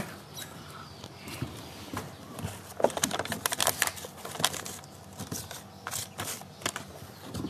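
Scattered, irregular light clicks and knocks of handling, as a phone camera is moved in close over a plastic kayak hull.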